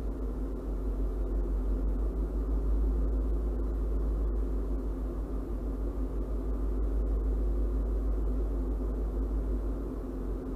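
Steady low engine rumble at idle, heard from inside a stopped vehicle's cabin. It swells slightly about a second in and eases near the end.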